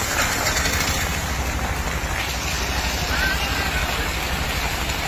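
Heavy rain falling on a flooded street, a steady hiss, with a vehicle engine idling close by underneath.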